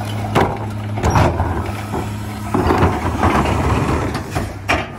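Recycling carts being tipped and shaken out into the hopper of a McNeilus split rear-loader garbage truck: sharp plastic knocks of the carts against the tippers and a rattling clatter of recyclables falling in, over the truck's idling diesel engine.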